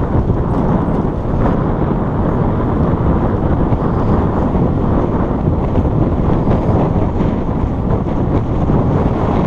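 Steady street traffic noise mixed with wind buffeting the microphone, an even low rumble with no distinct events.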